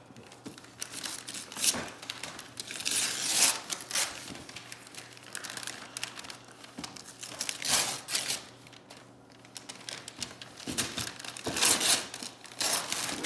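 Gift wrapping paper being torn and crumpled off a large box, in irregular rips and rustles with short pauses between them.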